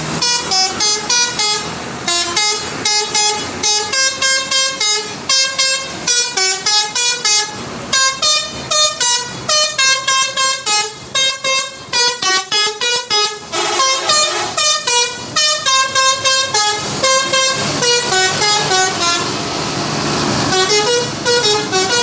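Telolet bus horn: a bus's multi-tone musical air horn playing loud, rapid runs of short notes that step up and down in pitch, the tune repeating again and again.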